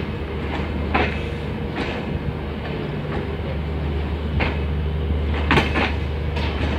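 Passenger coaches rolling past, their wheels clicking and clanking at uneven intervals over rail joints above a low steady rumble.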